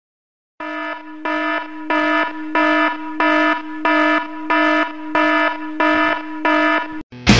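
Alarm sounding in evenly repeated pulses, about three every two seconds, over a steady low tone. It starts after a short silence and cuts off just before the end.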